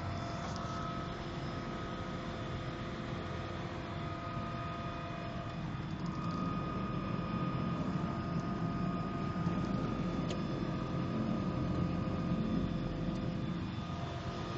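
DHC-2 Turbo Beaver's Pratt & Whitney PT6A turboprop engine running steadily, heard from inside the cabin: a low hum with several held whine tones, growing slightly louder in the middle.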